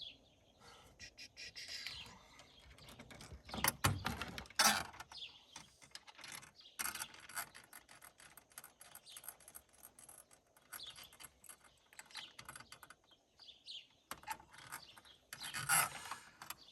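Scattered clicks, rattles and light knocks of small metal parts and hand tools being handled, with a few louder clusters of clatter.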